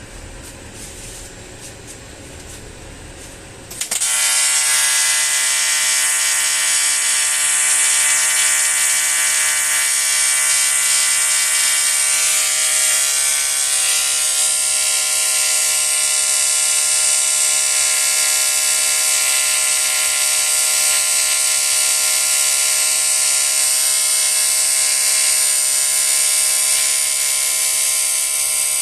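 TIG (argon arc) welding arc on a cast aluminium alloy wheel: a loud, steady electric buzz that strikes up suddenly about four seconds in and holds without a break.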